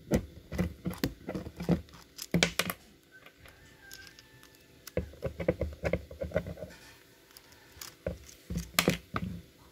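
Irregular clicks, knocks and light rustling of a small carburetor being handled and opened up by hand, in three bunches with a quieter gap around four seconds in.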